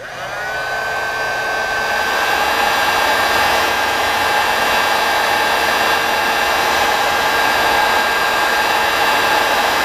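Electric heat gun running steadily, a loud blowing hiss with a whine that rises in pitch over the first couple of seconds as it spins up, then holds. It is heating the engine's coolant temperature sensor to drive the gauge.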